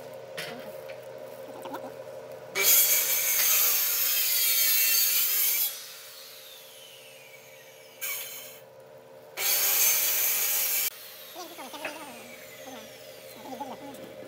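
Wood lathe running with a steady motor hum while a rag is pressed against the spinning wooden spindle to rub on finish. The rag gives two loud stretches of rubbing hiss, the first about three seconds long and the second about a second and a half.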